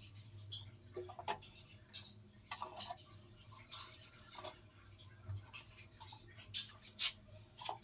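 Faint, irregular light clicks and taps as hen's eggs are set down one by one into a sand-lined nest, the shells knocking lightly against each other, over a faint steady hum.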